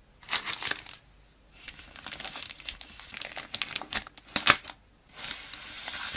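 Thin plastic packaging crinkling and rustling as a black plastic phone bumper case is pulled out of its frosted bag. It comes in three spells, with sharp crackles about four seconds in and a steadier sliding rustle near the end.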